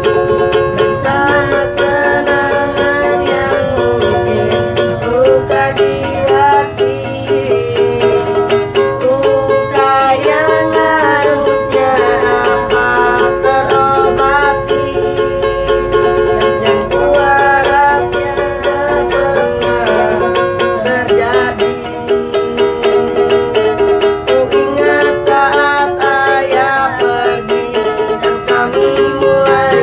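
Acoustic ukulele strummed in a steady rhythm, accompanying a sung Indonesian pop song.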